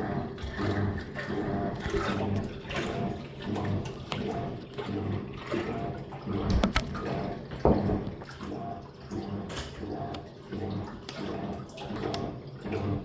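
Living & Co 5.5 kg top-loading washing machine agitating, its wash plate turning back and forth in short strokes with water sloshing, about two surges a second. These shorter strokes come toward the end of the wash cycle to spread the load evenly before the drain and spin.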